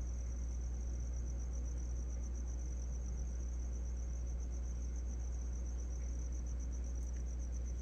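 Crickets chirping in a continuous, rapidly pulsing high trill, over a low steady hum.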